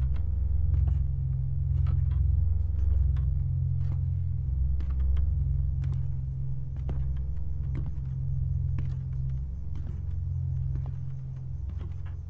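Low, steady rumbling drone of a horror film score, with faint scattered clicks over it, slowly fading toward the end.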